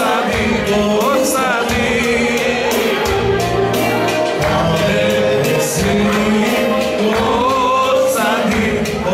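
Live Macedonian folk dance music: singing with instrumental accompaniment, an ornamented, wavering melody over sustained low notes and a steady percussive beat.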